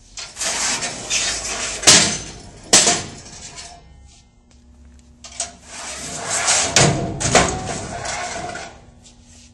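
Two drawer rails of a Load'N'Go long bed truck drawer being pulled out of the unit one after the other, each running out on its bearings with about three seconds of rattling and scraping. Sharp clanks ring out during each pull.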